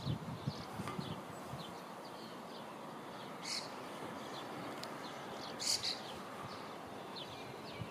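Small birds chirping repeatedly over a steady outdoor background hiss, with two louder short calls about three and a half and six seconds in.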